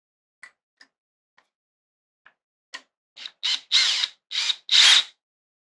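A few light clicks, then a drill turning a screwdriver bit in four or five short bursts about three seconds in, working at a tight screw.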